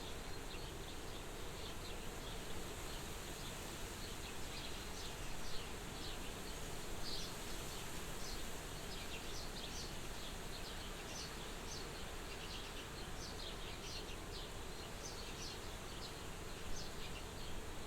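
Soft wind blowing at a farmhouse window as a steady hiss, with many short high-pitched chirps scattered throughout.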